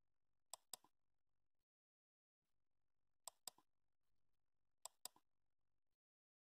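Mouse-click sound effect of a subscribe-button animation: three pairs of sharp clicks, about half a second in, about three seconds in and about five seconds in, over a faint hiss.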